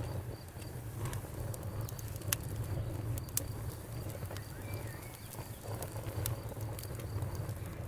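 Campfire crackling, with sharp pops scattered irregularly over a steady low rumble of the burning wood. A faint chirping of crickets pulses high in the background.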